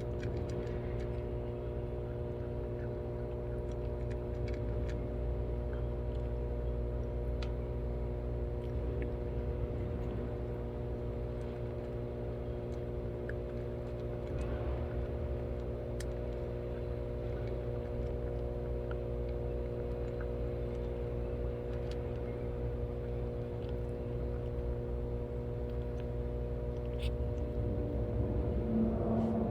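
A steady machine hum with several fixed tones, and faint scattered clicks over it; the tones drop out near the end.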